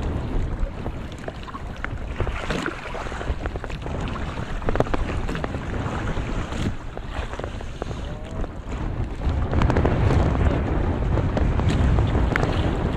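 Wind noise on the microphone and sea water around a small fishing boat while a net is hauled in by hand, with scattered light clicks and splashes. The wind noise grows louder in the last few seconds.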